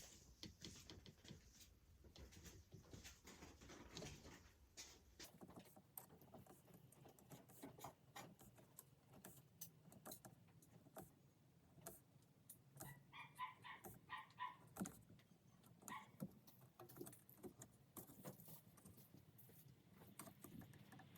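Near silence with faint, scattered taps and clicks of hand work at a bench, and a brief faint high-pitched whine in a few short notes about thirteen seconds in.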